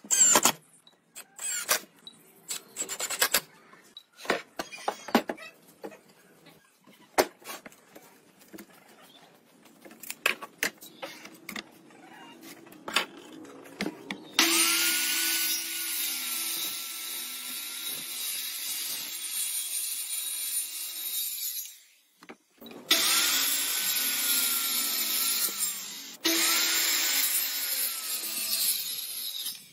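Handheld electric circular saw cutting pine boards in three long passes, the second half of the clip, each a loud steady cut with a wavering motor whine. Before that, short bursts of a cordless drill driving screws into wood and scattered knocks of boards being handled.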